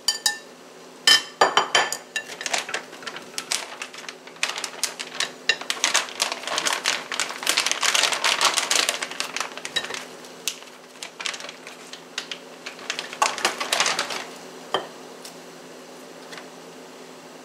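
Kitchen shears snipping and a glass bowl clinking against a metal pot, with a few sharp clicks about a second in. Then a plastic food bag crinkling for several seconds, and a few more snips and clicks near the end, over a steady low hum.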